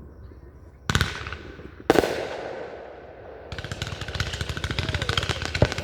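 Fireworks: two loud booms about a second apart, each with a trailing rumble, then about three and a half seconds in a dense run of rapid crackling.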